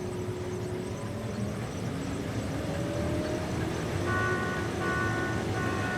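Combine harvester engine running steadily with a low rumble and a slowly rising tone. From about four seconds in, an electronic beep repeats a little more than once a second.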